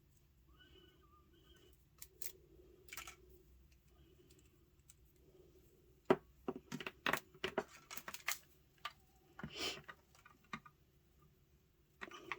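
Packaging being handled and unwrapped by hand: a few isolated clicks, then a dense run of sharp clicks and crinkles about halfway through, a short rustle a little later and another burst near the end.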